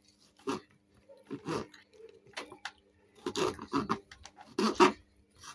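Kitchen knife cutting zucchini into cubes on a cutting board: a series of irregular short chops and crunches, about one every half second to second.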